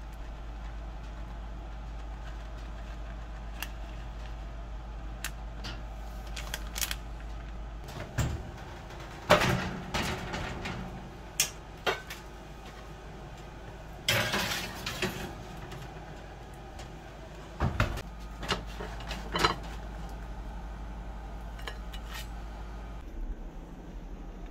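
Kitchen handling sounds around a metal sheet pan and an oven: scattered clicks and several sharp clanks and knocks, the loudest about nine seconds in, and a longer rattling burst around fourteen seconds, over a steady low hum.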